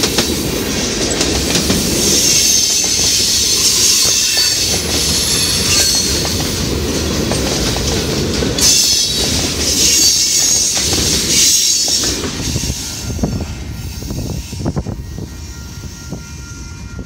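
Mixed freight train cars (tank cars, covered hoppers, boxcars) rolling past close by: steel wheels squealing and clacking over the rail joints. The sound fades out over the last few seconds as the end of the train passes, leaving a few separate clacks.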